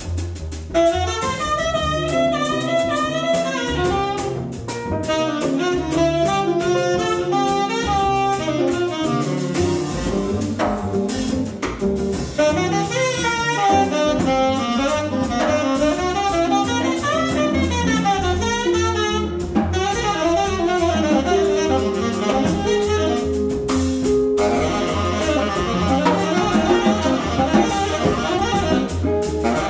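Live small-group jazz: a tenor saxophone leads with quick, winding melodic runs over upright bass, electric guitar and a drum kit.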